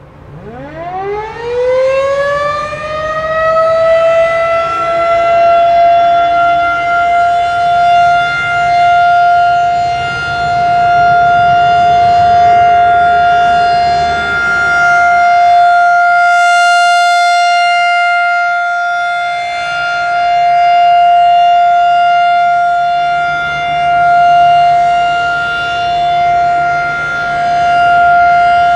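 Federal Signal 2001-SRN outdoor warning siren winding up from a low pitch over its first few seconds, then holding one steady 700 Hz tone: the steady alert signal. The tone swells and fades slowly as the rotating siren head turns.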